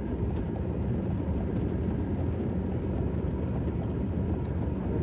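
Steady low rumble inside a moving car's cabin: engine and road noise.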